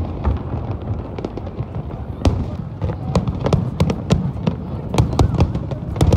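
Aerial fireworks bursting overhead: a rapid, irregular series of sharp bangs and crackles over a steady low rumble.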